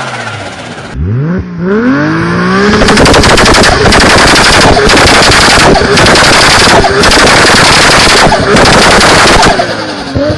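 Turbocharged car engine revving up about a second in, then held high for about seven seconds with a rapid machine-gun string of exhaust bangs, broken by a few short gaps; this is typical of an anti-lag system firing. The revs drop near the end.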